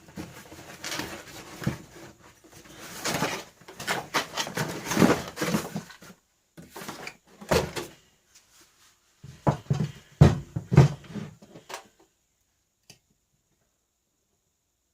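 Handling noises from unpacking a small benchtop disc sander: irregular rustling and light knocks for several seconds, then a few heavier clunks as the machine is moved and set down, stopping about twelve seconds in.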